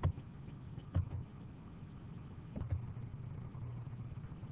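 A few short computer mouse clicks over a low steady hum.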